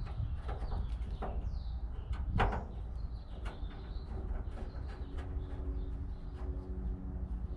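Birds chirping, over scattered clicks and knocks; one louder knock comes about two and a half seconds in. A steady hum with several tones starts about five seconds in.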